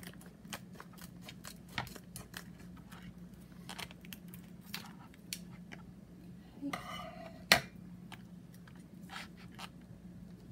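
Scissors snipping open a hot food pouch: a string of small clicks and crinkles, with one sharp clack about seven and a half seconds in, over a steady low hum.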